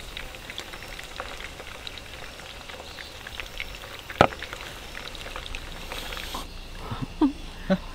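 Steady fine crackling patter with one sharp knock about four seconds in. About six and a half seconds in the crackle drops away and a few short falling calls sound.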